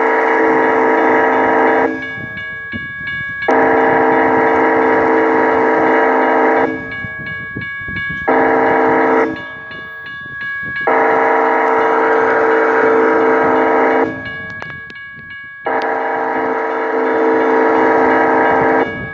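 Approaching locomotive's air horn sounding for a grade crossing: long multi-tone blasts with one short blast in the middle, the last cutting off near the end. Between the blasts the crossing's warning bell rings at about four strikes a second.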